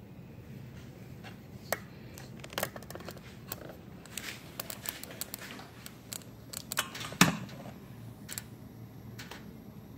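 Stainless steel pot lid ticking and rattling irregularly on a pot of ribs at a high boil, with one louder knock about seven seconds in.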